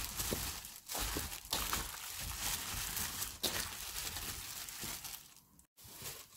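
Gloved hand tossing cubed radish in wet chili seasoning in a stainless steel bowl: squelching, the plastic glove crinkling and the cubes knocking together and against the metal, dying away about five seconds in.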